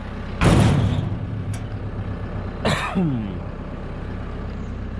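Tractor engine idling steadily, with a loud metallic clank about half a second in and a short squeal falling in pitch near the middle as a storage pin is slid into its hole on a New Idea 483 round baler.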